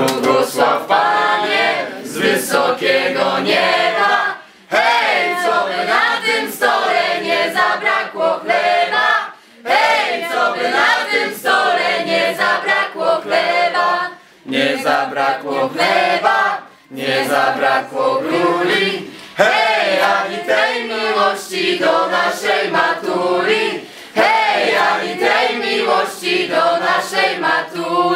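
A mixed group of young men and women singing together unaccompanied, in phrases with short breaks between them.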